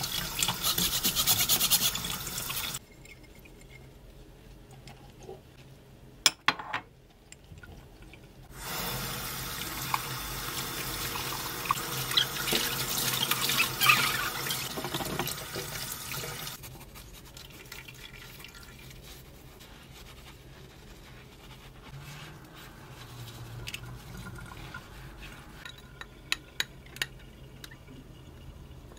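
Kitchen tap running into the sink as glass tumblers are rinsed by hand, the water on for about the first three seconds and again from about nine to sixteen seconds. Between and after the runs come quieter handling sounds: a few sharp glass clinks and a sponge scrubbing a glass bowl.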